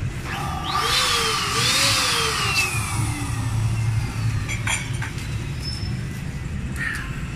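A small motor revs up twice and then winds down in one long falling whine over about three seconds, with a steady low background hum and a few sharp clicks later on.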